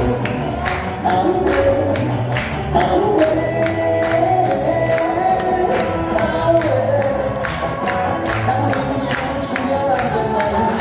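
Upbeat Christian praise song, a group of voices singing over a steady drum beat and bass.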